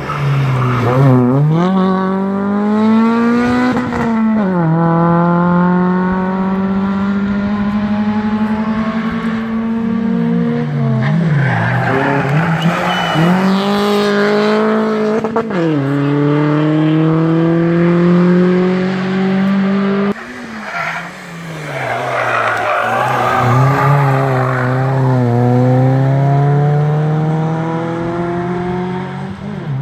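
Hill-climb race cars, production hatchbacks such as a Renault Clio and a Peugeot 206, accelerating hard out of a hairpin one after another. Each engine note climbs through the revs and drops back at every upshift. Between cars there are stretches of tyre squeal as the next car brakes and turns in.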